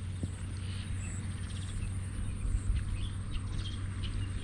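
Faint birds chirping in short, scattered calls over a steady low outdoor hum.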